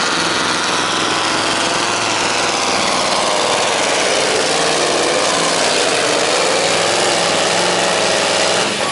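Scania V8 truck-pulling truck engine running flat out under heavy load as it drags the weight sled, its pitch wavering slightly. The engine sound drops away just before the end.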